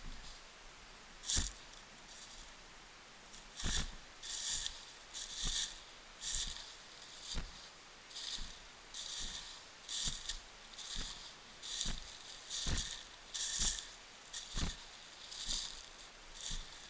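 Footsteps crunching through dry fallen leaves, about one step a second, each a rustling crunch with a dull thud of the foot landing. The steps pause for about two seconds near the start, then go on steadily.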